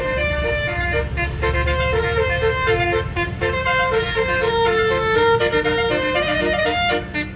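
A bus's basuri telolet horn, a set of musical air-horn trumpets, playing a quick melody of short held notes. Under it a low engine rumble fades out after about two and a half seconds.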